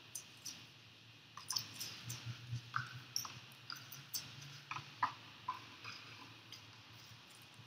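A fresh green tule reed being split lengthwise by hand into strands for string: irregular small crackles and ticks as the fibres tear apart, most of them in the first two thirds.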